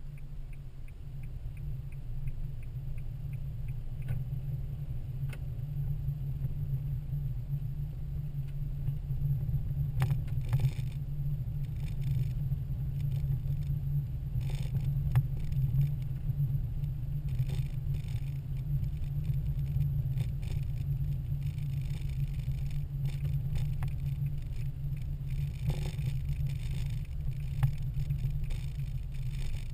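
Car interior noise while driving: a steady low rumble of engine and tyres on the road. A rapid run of light ticks sounds in the first few seconds, and a few faint knocks are scattered through.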